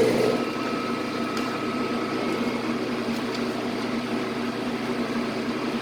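Victor lathe running steadily under power, a continuous machine hum with a faint steady whine, a little louder at the very start as it comes up to speed.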